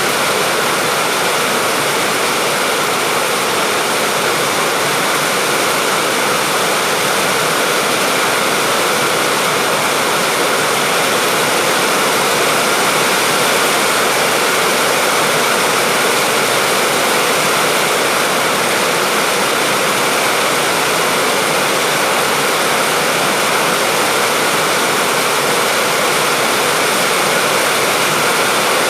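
Steady heavy rain falling, an even unbroken hiss of water with no separate drops or thunder standing out.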